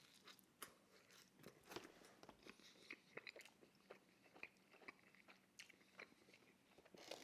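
Faint, close-up chewing and crunching of thin-crust pizza, with irregular small crunches and wet mouth clicks.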